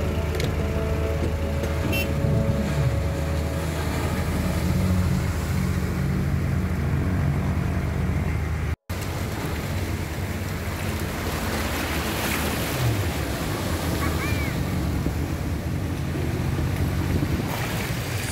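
Surf washing onto the beach with wind buffeting the microphone, under the steady low drone of a fishing boat's engines as it runs in through the waves. The sound breaks off for an instant about halfway through.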